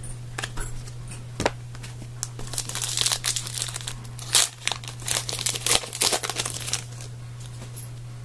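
Foil wrapper of a trading card pack crinkling and tearing as it is opened by hand, in a run of sharp crackles for a few seconds, over a steady low electrical hum.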